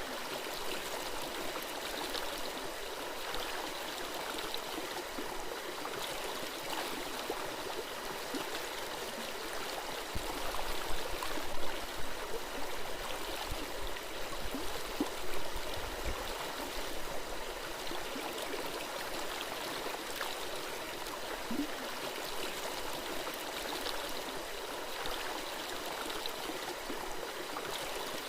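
Small forest stream running over stones, a steady babbling and gurgling of water, with a few louder low thumps about halfway through.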